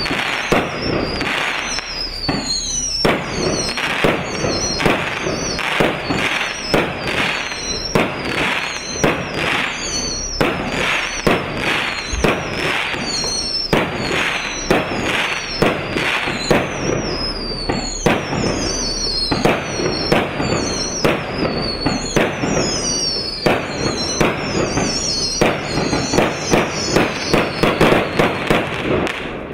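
A 100-shot, 1-inch firework cake firing shot after shot, each launch and burst carrying a high falling whistle. The shots come faster near the end, then stop.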